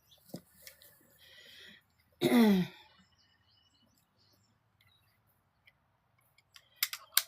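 Mostly quiet, with one short vocal sound from a woman about two seconds in, falling in pitch, then a few sharp clicks near the end.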